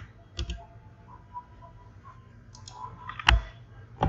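A few scattered keystrokes on a computer keyboard, with one sharper click a little over three seconds in.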